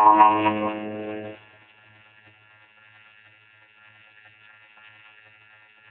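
Emergency Alert System two-tone attention signal, a loud steady alarm tone that cuts off sharply about a second and a half in, leaving a faint steady hum of high tones.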